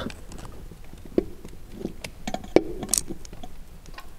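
A few light knocks and clicks as a Mercedes ML W163 torque converter is worked by hand onto the automatic gearbox's input shaft. The sharpest knock comes about two and a half seconds in.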